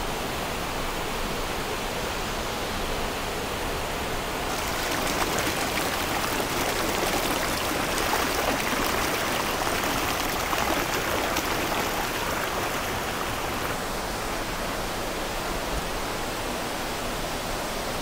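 Water rushing steadily: a small waterfall pouring into a rock pool and a shallow stream running over rocks. The rush turns brighter and a little louder about four and a half seconds in.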